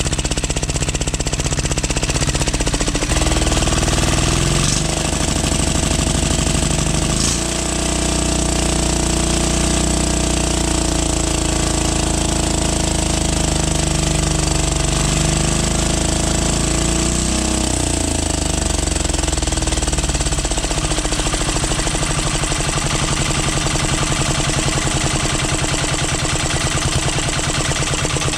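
12 HP air-cooled diesel engine running with a steady thumping beat. Its speed changes a few times in the first eighteen seconds or so, then holds even.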